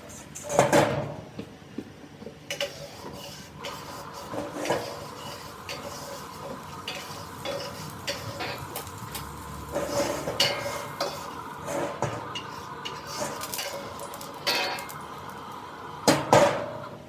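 Metal spatula clanking and scraping against a wok in irregular strokes, with louder knocks about half a second in and again near the end, over a faint steady hum.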